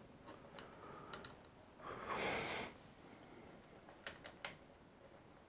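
Faint clicks and taps of small plastic playset parts being handled and fitted together by hand: a few light clicks early, a short breathy hiss about two seconds in, and a small cluster of clicks a little after four seconds.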